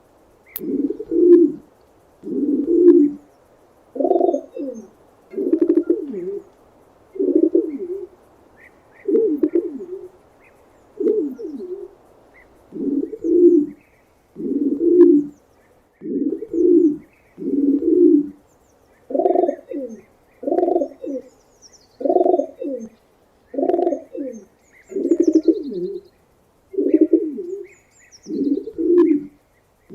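Pigeon cooing over and over, a low coo repeated about every second and a half, with faint chirps of small birds in the background.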